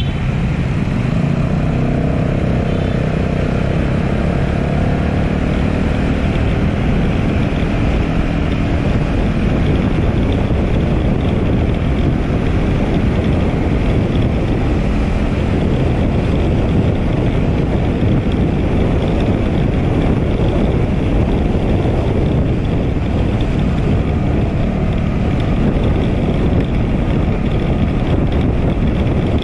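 Motor scooter being ridden, heard from the rider's camera: a steady rush of engine and road noise. For the first few seconds an engine note rises and bends in pitch as the scooter picks up speed, then the sound settles into an even rush.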